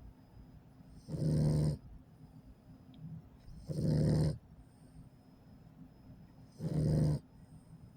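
An 8-week-old pit bull puppy snoring in its sleep: three loud snores, each just over half a second long, coming about every three seconds.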